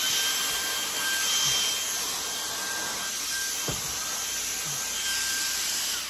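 Shark Mini cordless handheld vacuum running with a steady high whine as its wide nozzle rubs over snooker table cloth. It is switched off right at the end and starts to wind down.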